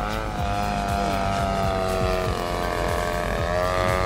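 Model airplane's EME35 35cc two-stroke petrol engine and propeller running in flight, with a steady buzzing tone whose pitch wavers and dips briefly about three seconds in.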